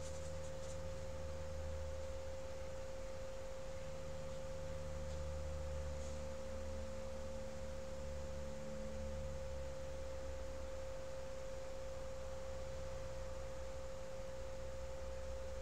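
A steady, unwavering pure tone, like an electrical whine, over a low hum.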